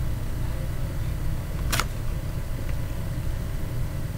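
Tarot cards being handled and laid out on a table, with one sharp card snap a little under two seconds in, over a steady low background rumble.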